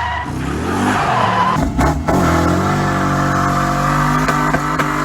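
LS1 V8 engine of a swapped Nissan 300ZX revving hard. Its pitch falls off in the first second or so, then climbs and holds high.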